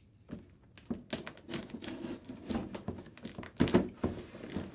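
Folding knife cutting the packing tape on a cardboard box, with irregular scraping and crinkling of tape and cardboard and a couple of louder knocks a little past halfway.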